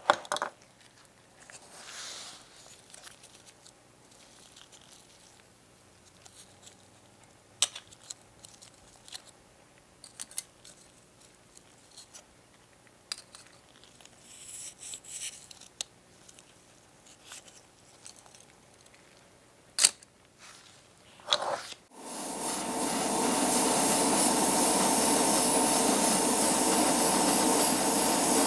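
Faint rustles, clicks and scrapes of gloved hands handling small plastic model parts, with a short run of light sanding strokes about halfway through. About three-quarters of the way in, an airbrush starts spraying with a loud, steady hiss of air.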